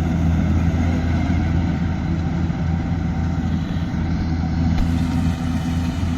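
Diesel engine of a farm machine running steadily at an even speed.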